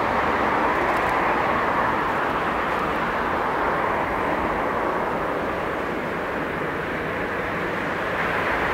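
Airbus A380's four Rolls-Royce Trent 970 jet engines giving a steady roar during its landing rollout, easing off slightly in the middle.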